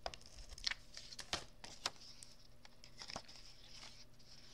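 Paper being handled on a craft mat: light rustling of cardstock and patterned paper, with a few soft taps and clicks as the pieces are moved and set down.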